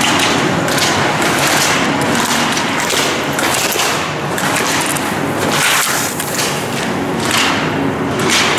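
Ski edges scraping and hissing over hard-packed indoor snow on slalom turns, in repeated swells about once a second, with dull thumps on the microphone.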